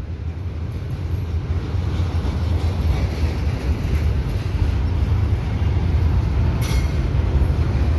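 Double-stack container cars of a CPKC freight train rolling past, a steady low rumble of steel wheels on rail. One brief sharp click or clank comes near the end.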